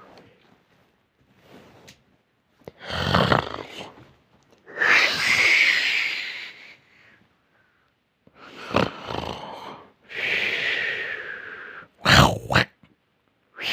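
A person snoring loudly and irregularly: about five rasping snores with short pauses between them, some carrying a high whistling tone, and two short sharp snorts near the end.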